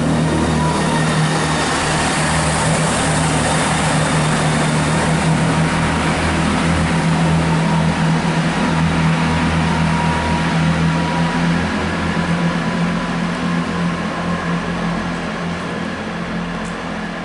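Chiltern Railways Class 165 diesel multiple unit pulling away under power, its diesel engines giving a steady drone. The sound fades gradually over the last several seconds as the train moves off.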